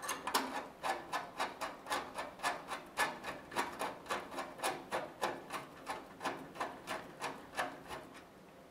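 Hard drive mounting rails scraping against the metal drive bay of a computer case as they are lined up and worked in: a steady run of short rubbing strokes, about three a second, that stop near the end.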